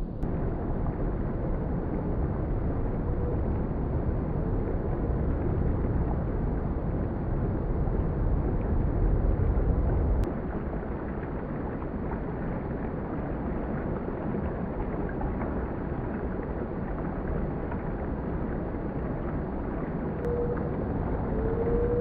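Stream water rushing over rocks as a low, steady rushing noise, a little quieter after a cut about ten seconds in. A few faint short rising whistles come near the end.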